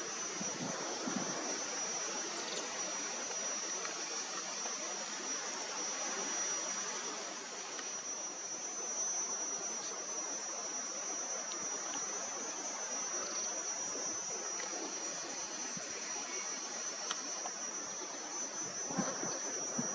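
Steady savanna ambience: a continuous high-pitched insect drone over an even hiss.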